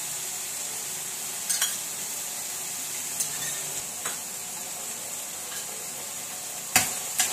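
Chopped onion, capsicum and chilli sizzling in hot oil in a kadai, with sauce just added, while a spoon stirs them. A few sharp knocks of the spoon against the pan, the loudest two near the end.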